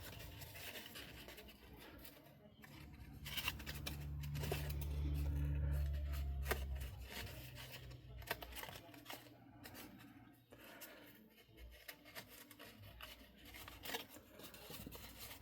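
Cardstock being handled, folded and pressed: light paper rustling and small taps. A low hum swells and fades for a few seconds midway.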